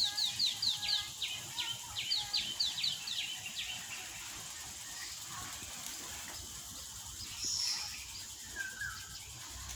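A bird calling in a quick run of sharp, downward-slurred chirps, about four a second, for the first few seconds, then only a few scattered calls. A steady high insect hum runs underneath.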